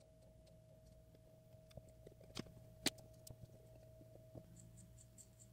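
Faint metal clicks of a die in a die stock turning on a stripped M6-1 bolt held in a vise, chasing its threads. A few sharp clicks, the loudest about three seconds in, then a run of small light ticks near the end, over a faint steady hum.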